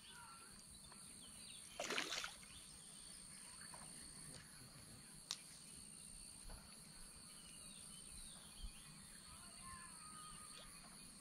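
Quiet outdoor ambience: a faint steady high hum and a few faint short chirps, with one brief louder noise about two seconds in and a single click a few seconds later.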